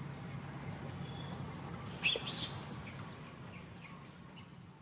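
Outdoor ambience of birds chirping: scattered short, falling calls over a steady low hum. A brief sharp noise comes about two seconds in, and the whole sound fades down towards the end.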